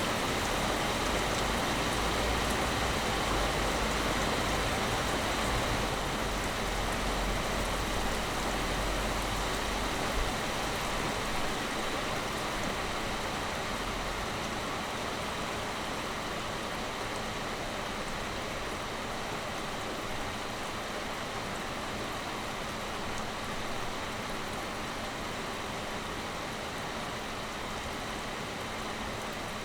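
Heavy rain pouring steadily, a dense even hiss, with a low rumble underneath that stops about halfway through.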